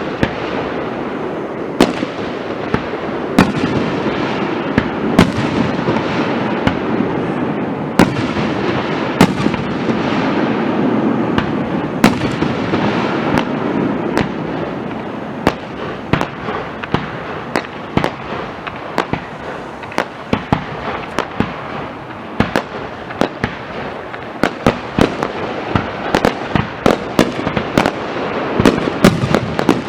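Fireworks display: aerial shells bursting with sharp bangs over continuous crackling. The bangs come irregularly at first and much faster in the last few seconds.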